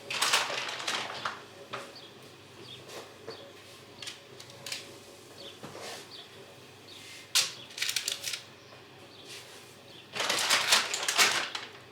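Kitchen handling noises: rustling bursts near the start and again near the end, with a sharp click and a short run of clicks in the middle.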